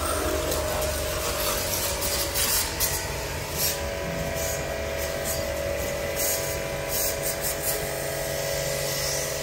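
Electric car-wash pump (pressure washer) running with a steady hum, its water jet hissing in short spurts as it sprays the car's windshield.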